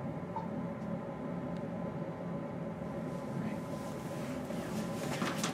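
Steady background hiss and hum with a faint, steady high tone. From about three seconds in comes rustling handling noise, loudest just before the end.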